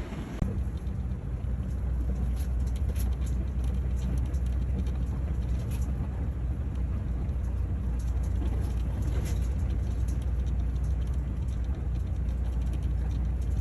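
Steady low vehicle rumble that sets in about half a second in and holds, with faint scattered ticks over it.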